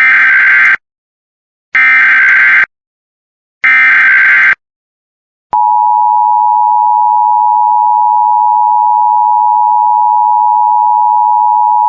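Emergency Alert System tones announcing an Amber Alert. First come three short bursts of SAME digital header data, each about a second long with short gaps between them. About five and a half seconds in, the steady two-tone EAS attention signal begins and holds.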